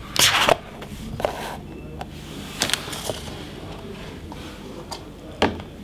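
Plastic packaging being handled: a short rustle near the start, then a few light scattered clicks and taps as the plastic tray holding the headset is set down on the table.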